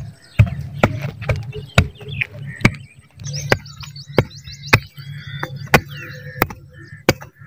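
Sharp knocks repeating about once or twice a second, somewhat irregular, like a hand tool striking, with birds chirping in short bursts and a low rumble underneath.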